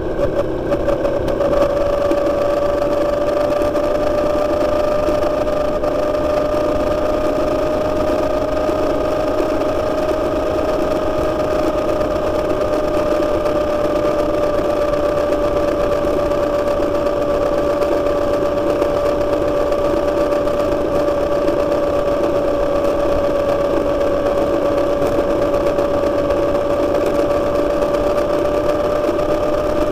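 Motorcycle engine running at a steady cruise, a constant drone that holds almost the same pitch throughout, with a fainter higher tone above it.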